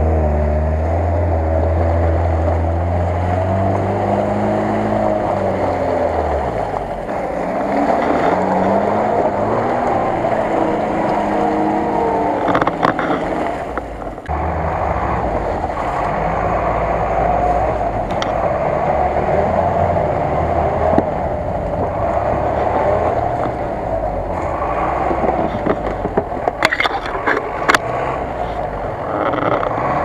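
Off-road engines labouring through deep mud, pitch rising and falling with the throttle. After an abrupt change about halfway, a GAZ-66 truck's engine runs under load close by. A few sharp knocks near the end.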